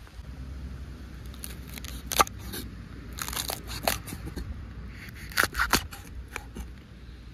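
A scattered series of short, crisp snips and crunches, the loudest about two seconds in and another pair around five and a half seconds, over a steady low rumble: hands cutting or breaking food while cooking.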